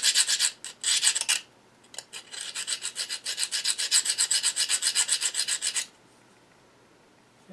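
Flat file rasping back and forth across the metal cutting teeth of a pen-turning barrel trimmer, sharpening the dulled cutter edges. The strokes come quickly, about six a second, with a short break a second and a half in, and stop about six seconds in.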